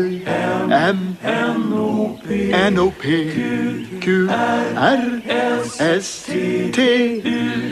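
A small chorus of voices chanting the letters of the alphabet one after another, unaccompanied, in a rhythmic sung chant.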